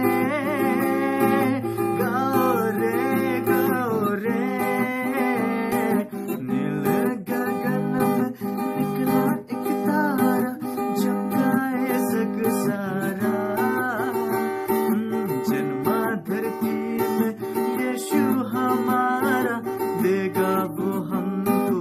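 Music: acoustic guitar strumming under a wavering melody line, with no words sung.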